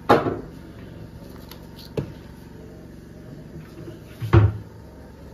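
Kitchen items knocking and clattering as they are handled on a granite counter: a loud knock at the start, a small click about two seconds in and a heavier knock a little after four seconds, over a low steady hum.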